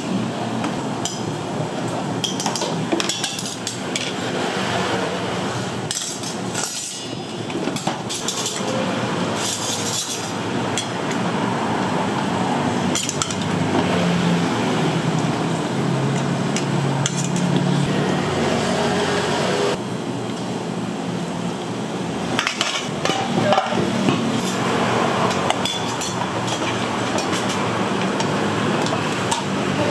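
Busy stall-kitchen clatter: metal ladles and utensils clinking and knocking against steel pots and china bowls and plates, many short sharp clinks over a steady background din.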